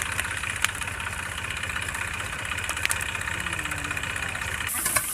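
Tractor's diesel engine idling steadily, with a few sharp clicks and a high hiss starting near the end.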